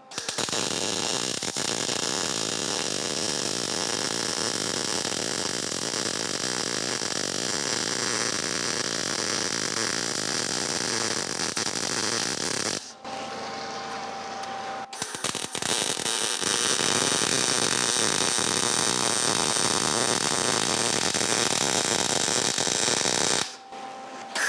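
MIG welding arc crackling in two long runs, about thirteen and then eight seconds, with a short pause between them where the trigger is released.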